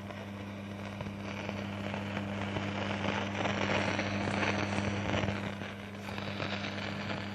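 Ahuja 4040S stereo cassette deck's amplifier putting out a constant scratchy crackle ("khur khur") through its speaker over a steady hum. The noise will not stop; the owner traces the fault to jammed trimmer potentiometers inside.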